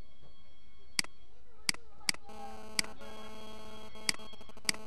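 Computer mouse clicks, about six sharp ones spread irregularly, over a steady low mains hum. From a little past two seconds in, a buzzing electrical tone joins the hum.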